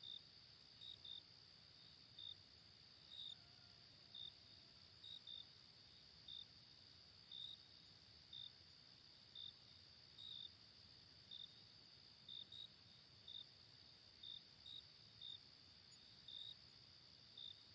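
Faint crickets chirping: short chirps about once a second, some in quick pairs, over a steady high insect trill.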